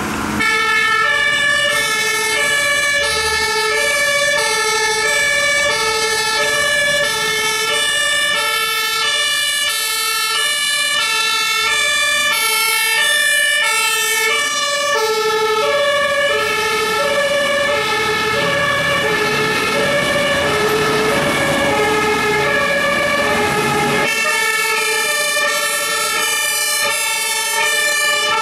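Several fire engines' two-tone sirens (German Martinshorn) sounding as the convoy passes, each stepping between a high and a low note, the sirens overlapping out of step with one another.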